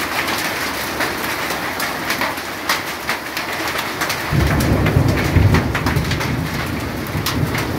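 Heavy rain of a hailstorm pouring steadily, with scattered sharp ticks of hailstones striking surfaces. From about four seconds in, a deep rumble joins the rain.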